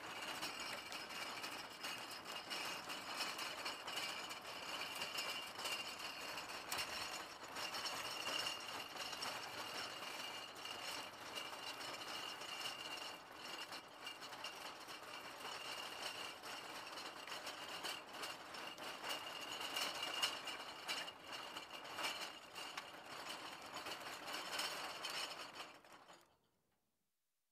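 A cart loaded with bottles being moved along, the bottles rattling and clinking against each other without a break until it fades out about 26 seconds in.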